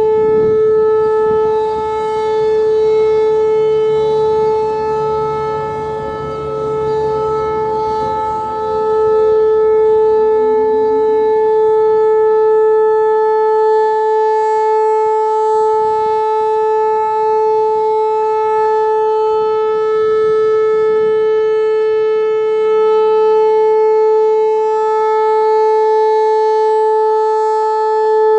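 Whelen Vortex R-4 storm siren sounding one steady, high tone during a siren test, its loudness swelling and dipping slightly.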